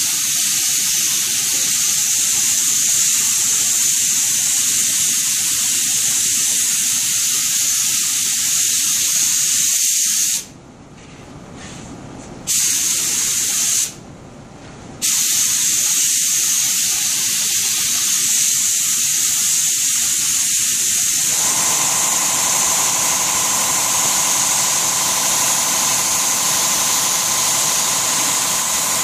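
Compressed-air spray gun hissing steadily as it sprays mahogany shader. The hiss stops twice for a second or two about a third of the way in. About two-thirds through, a steady motor hum joins the hiss.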